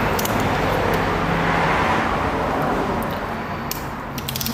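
A road vehicle going past, its tyre and engine noise slowly fading away, with a few light clicks near the end.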